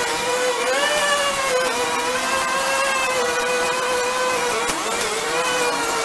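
Small engine of a brush cutter running at high speed while cutting weeds, steady, its pitch rising about a second in and dipping briefly near the end.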